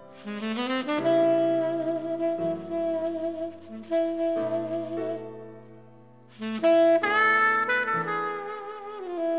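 Tenor saxophone playing a slow jazz ballad melody over a soft accompaniment. It opens with a rising run of notes into long held notes with vibrato, and a new phrase comes in about two-thirds of the way through.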